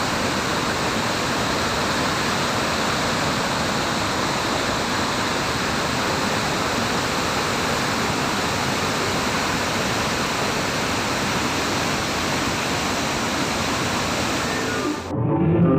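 Waterfall in monsoon flow, water pouring down in a steady, even rush that does not let up. About fifteen seconds in it cuts off abruptly and music takes over.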